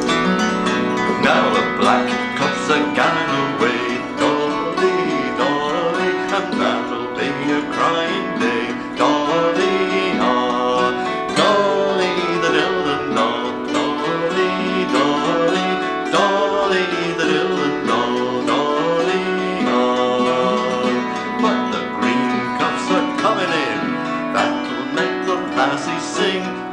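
Folk tune on a strummed steel-string acoustic guitar and a hammered dulcimer, its strings struck with small hammers, while a man sings the melody.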